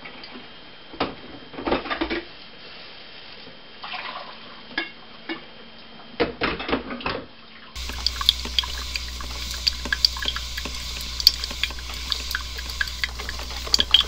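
Coffee poured from a glass coffee-maker carafe into a mug, with several clinks of carafe and mug. After about eight seconds it gives way to a steady low hum with scattered crackling ticks.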